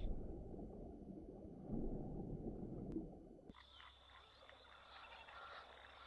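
Faint waterhole ambience. A low, muffled rumble cuts off abruptly about three and a half seconds in, leaving faint bird chirps over a steady high insect drone.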